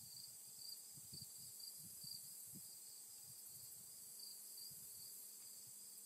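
Faint insect chorus: a steady high-pitched buzz with a note that swells and fades in a regular pulse, about twice a second.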